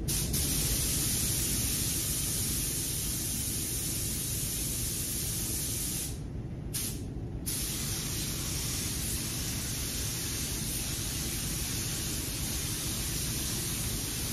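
Tuba TH101AG gravity-feed paint spray gun spraying clear coat: a steady hiss of compressed air atomising the clear. The hiss stops twice briefly, about six and seven seconds in, as the trigger is let off, over a steady low rumble.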